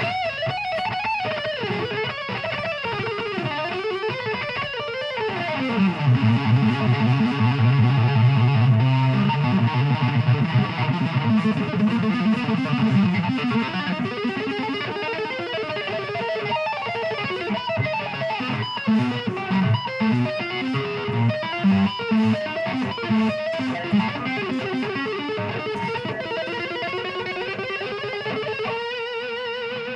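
Electric guitar played live in fast runs of notes over low held notes, with one note rising slowly near the end.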